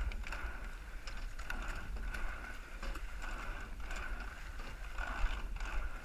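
Coxed racing eight rowing hard: the rattle of sliding seats rolling on their tracks and oars clacking in their oarlocks, repeating with each stroke.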